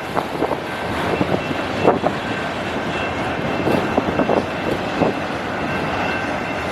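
Autorack freight cars rolling past: a steady rumble of wheels on rail with irregular clanks and knocks, and a faint high steady squeal.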